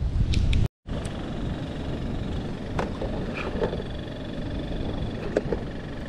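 Wind rumbling on the microphone, cut off briefly just under a second in, with small clicks and rustles as fish are picked out of a nylon cast net and dropped into a plastic bucket.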